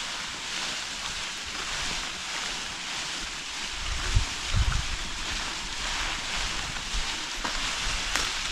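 Wind blowing over the microphone: a steady rushing hiss, with a few low buffets about four seconds in.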